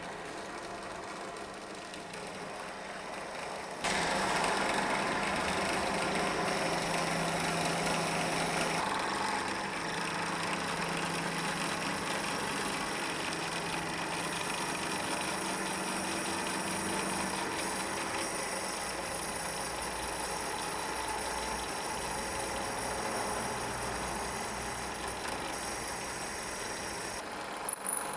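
Electric drill running steadily under load while drilling holes for a flange. The sound gets louder about four seconds in, and its tone shifts again around nine seconds and near the end.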